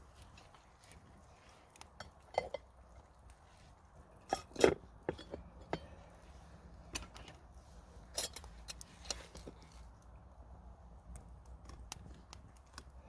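Metal utensils clinking and knocking against cookware: scattered, irregular clinks, the loudest a little under five seconds in.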